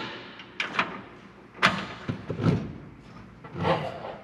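A handful of sharp, irregular metal clanks and knocks: a hand wrench being fitted onto a nut on a car's front-suspension bolt, and metal tools knocking against steel parts.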